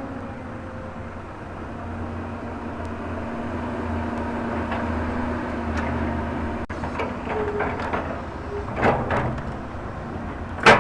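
Volvo excavator's diesel engine running steadily, working a little harder through the middle, with several sharp knocks in the last few seconds, the two loudest about a second and a half apart near the end.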